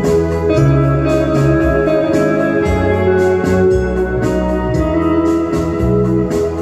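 Fender Stratocaster electric guitar playing a melody over a backing track, with a steady bass line underneath that changes note about once a second.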